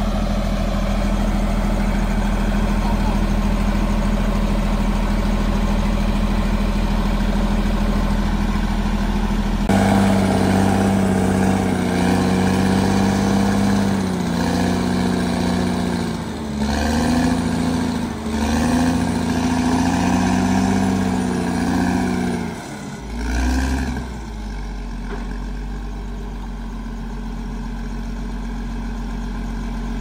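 Heavy diesel earthmoving-machine engine running. About ten seconds in it turns abruptly louder and its note wavers up and down under load, dipping briefly a few times, before settling into a steadier, quieter run near the end.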